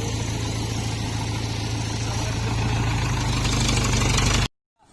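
Diesel engine of a Toyota FJ40 running steadily with a deep hum, getting a little louder about three seconds in, then cutting off suddenly near the end.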